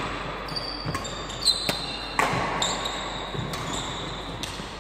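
Badminton rally on a wooden sports-hall floor: several sharp racket strikes on the shuttlecock and footfalls, the loudest hit about two seconds in. Court shoes give short high-pitched squeaks on the floor, and the hall echoes.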